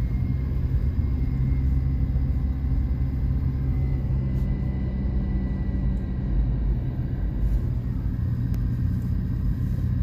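Car running along a road, heard from inside the cabin: a steady low engine drone and road rumble.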